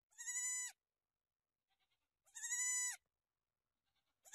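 A young goat kid bleating: two short, high-pitched calls about two seconds apart, with a third starting near the end.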